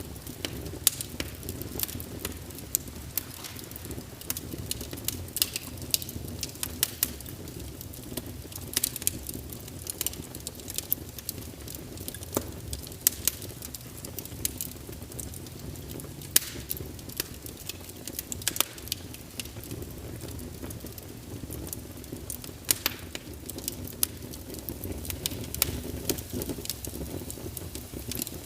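Wood fire in a fireplace crackling, with sharp irregular pops and snaps over a steady low rumble of burning.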